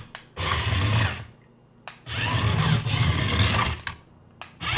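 Jackson Storm remote-control toy car's small electric motor and gears whirring in three short runs with pauses between, as the remote's buttons are pressed; the last run starts near the end.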